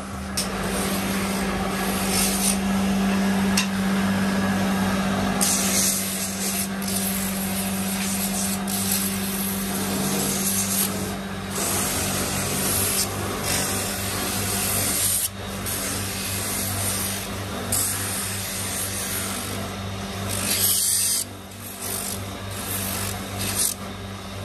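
Bench-mounted electric motor spinning an abrasive sanding drum with a steady hum. A wooden spoon is pressed against the abrasive in rasping, rubbing strokes that swell and fall.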